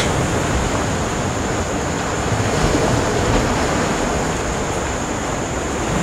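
Sea surf breaking and washing over black volcanic rocks at the shoreline, a steady rushing noise.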